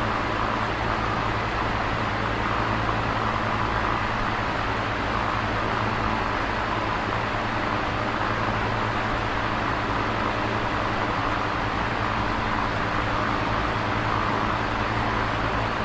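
Electric fan running steadily: an even rush of moving air over a low motor hum.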